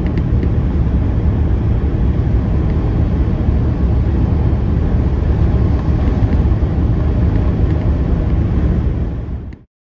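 Heavy truck-and-trailer's diesel engine labouring under a load of about 46 tonnes gross on a climb, a steady deep rumble that cuts off abruptly near the end.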